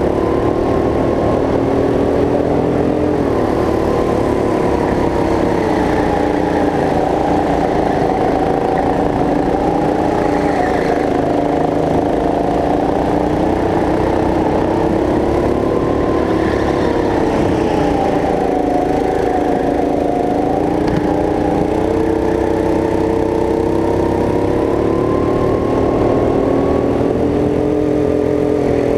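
Go-kart's small petrol engine running under load, heard onboard. Its pitch drops and climbs again several times as the kart slows for corners and accelerates out.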